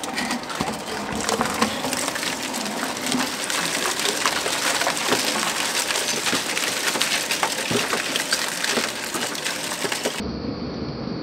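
Twin-shaft shredder's toothed cutting blades tearing and crushing flexible aluminium foil duct: a dense, continuous crackle and crunch of crumpling metal foil. It cuts off abruptly near the end.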